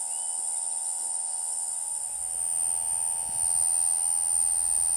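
Male Okanagana rimosa cicada giving its calling song, a steady high-pitched buzz that does not let up. A low rumble comes in about two seconds in.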